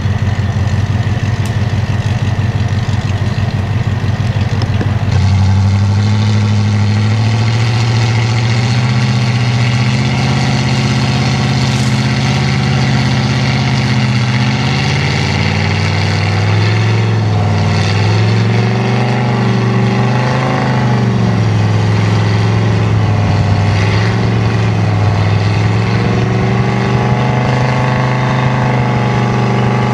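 Off-road truck engine running and revving, its pitch rising and falling as the throttle is worked. The sound changes abruptly about five seconds in.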